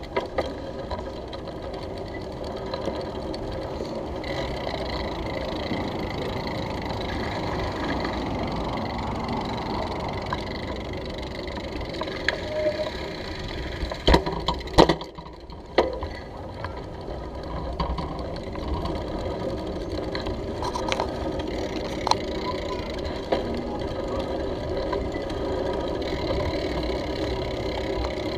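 Steady rumble and rattle of a bicycle riding over brick paving, picked up by a handlebar-mounted GoPro, with a few sharp knocks about halfway through.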